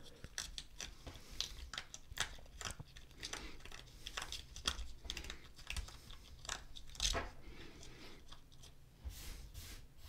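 Faint, irregular rustling and light clicking as a TV remote's rubber button pad is flexed and rubbed with a microfiber cloth to clear out trapped hair.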